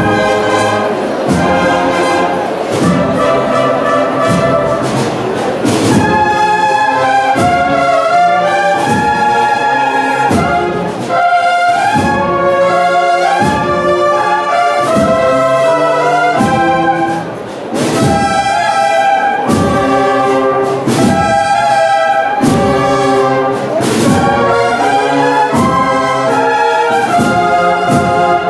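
Processional band of brass and drums playing a Holy Week march: a sustained brass melody over a steady drumbeat, easing briefly a little past halfway.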